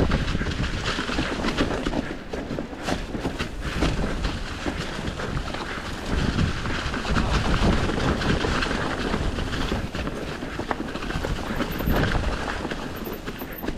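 Mountain bike riding fast down a dirt trail: the tyres rolling over the dirt and the bike rattling with many small clicks, under a low rumble of wind on the microphone.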